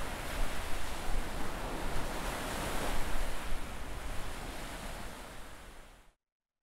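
Open-water wind and sea noise, with gusts rumbling on the microphone; it fades away and cuts to silence about six seconds in.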